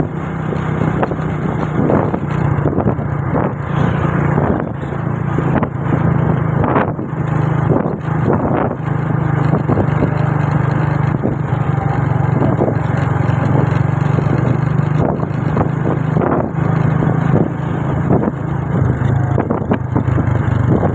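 A vehicle engine running steadily, with many short irregular thumps over it; no horn melody stands out.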